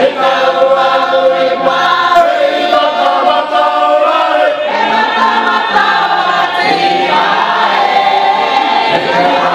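A choir singing: many voices in harmony, continuous and loud.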